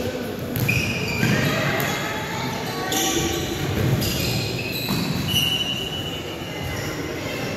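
A futsal ball thudding off feet and the hardwood floor, with sneakers squeaking and scattered voices calling out, all echoing in a large gym.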